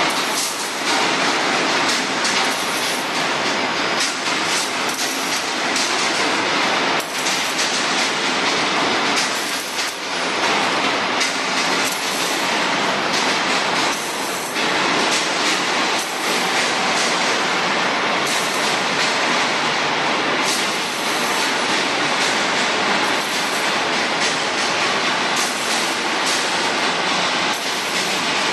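FH1500 CNC rebar cage welding machine running: continuous loud mechanical noise with irregular clatter.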